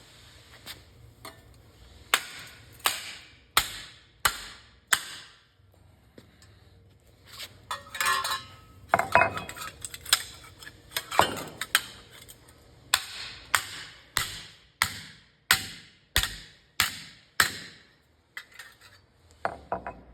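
Sharp metallic strikes on steel sheet, each ringing briefly, coming about one every three-quarters of a second, with a stretch of rattling and scraping in the middle.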